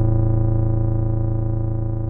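A single sustained bass note from a Yamaha TX81Z FM synthesizer, held and slowly fading, with a fine rapid pulsing in its tone.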